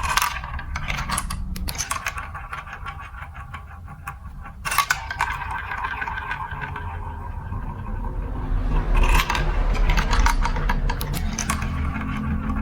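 Marbles rolling and clattering through a plastic building-block marble run: a low rumble of rolling under dense, rapid clicks. The clicking grows louder in clusters near the start, about five seconds in, and again from about nine seconds in.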